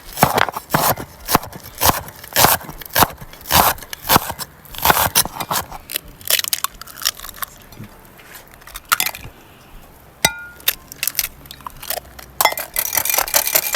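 Knife chopping vegetables on a cutting board: irregular sharp chops, two or three a second, with a short ringing clink of metal or glass about ten seconds in.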